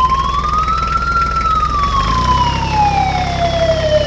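A siren wailing in one slow sweep, rising to its highest pitch about a second in and then falling gradually, over a steady low rumble.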